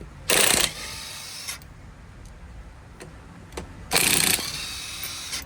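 Air impact gun with a 19 mm socket hammering lug nuts loose: two short, loud rattling bursts about three and a half seconds apart, each followed by about a second of quieter running as the nut spins off.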